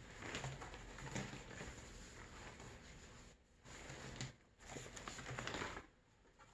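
Stiff crocodile leather skins and offcuts rustling and slapping together as they are shuffled by hand, in three stretches with brief pauses between, quieter near the end.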